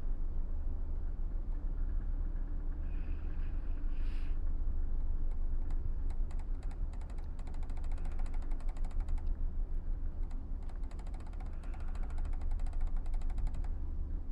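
Steady low rumble of the car ferry Nissos Rodos under way, with wind buffeting the microphone. From about six seconds in a rapid, even ticking rattle joins and stops shortly before the end.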